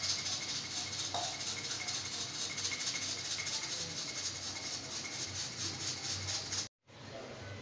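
Pressure cooker on a gas stove hissing steam at its whistle-weight valve: a steady high hiss with a fast, even rattling pulse, which cuts off suddenly near the end.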